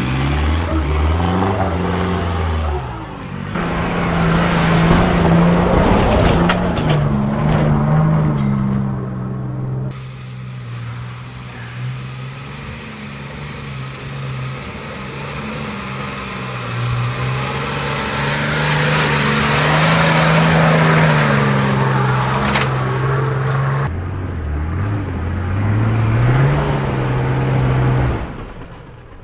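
Four-wheel-drive ute engines working hard up a steep rocky track, the engine note rising and falling as the drivers feed the throttle over rock steps. There are stretches of loud rough noise over the engine.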